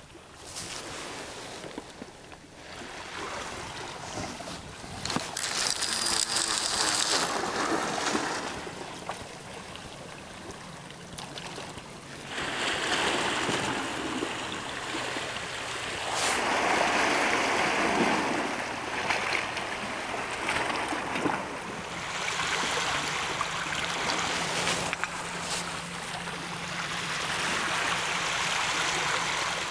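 Sea water washing and splashing against shoreline rocks, swelling and falling every few seconds.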